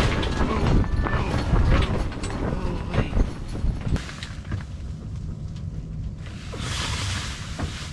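Strong wind buffeting the fabric walls of an ice-fishing shanty, heard as an uneven low rumble with a few knocks. A burst of fabric rustling comes near the end.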